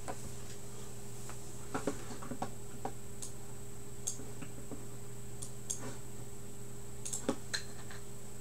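Steady electrical hum with a faint high whine, and a dozen or so scattered light clicks and ticks.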